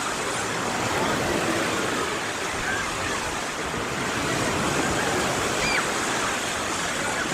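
Sea of Azov waves washing onto the shore: a steady surf noise.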